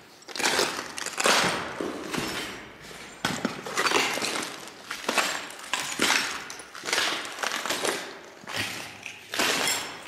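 Footsteps crunching over a floor littered with broken glass and debris, about one step a second.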